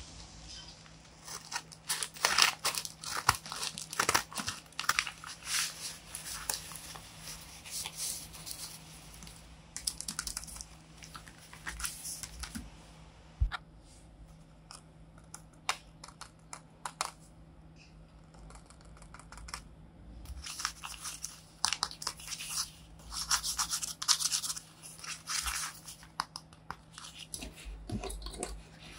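Paper and clear tape crinkling and rustling in irregular handled bursts, with short quiet pauses. Scissors snip through a tape-covered paper bag near the start, then stiff paper cards and folded paper are handled and opened.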